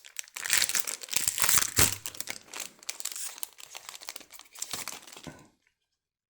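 Foil wrapper of a Pokémon booster pack being torn open and crinkled, a dense crackling that stops suddenly about five and a half seconds in.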